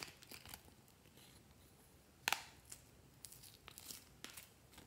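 Hard plastic makeup palette handled by hand: a sharp click about two seconds in, then a few lighter clicks and short rustles.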